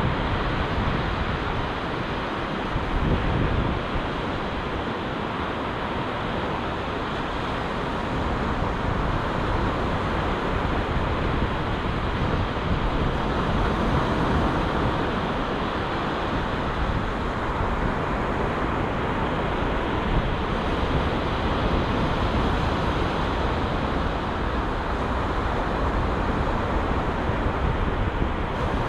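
Surf breaking on a sandy beach in a steady rush, with wind buffeting the microphone in a low rumble.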